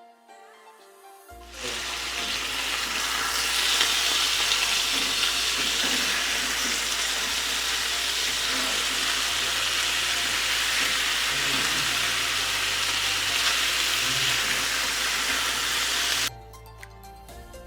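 Marinated chicken thighs sizzling in hot oil in a frying pan, a steady loud hiss that starts suddenly about a second in and cuts off suddenly near the end. Soft background music plays before and after it.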